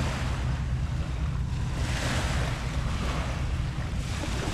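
Small waves washing on a beach, the hiss of the wash swelling and easing a few times, with wind buffeting the microphone as a steady low rumble.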